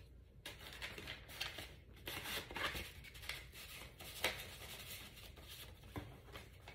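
Soft rustling and crinkling of a folded paper receipt and a card being handled and unfolded, with a couple of sharper ticks about four and six seconds in.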